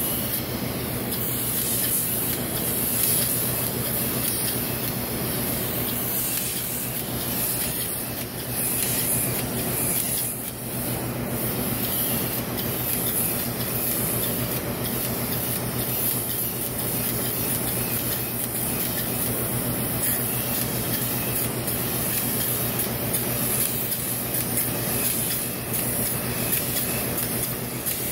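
Spray gun on a hose line spraying grey Expandothane roof coating: a steady high hiss over a constant low hum, easing briefly about ten seconds in.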